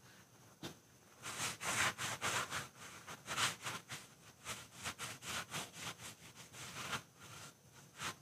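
A cloth towel wiping denatured alcohol across the face of a planed black walnut board. Starting about a second in, the towel makes a quick run of soft rubbing strokes, about three a second.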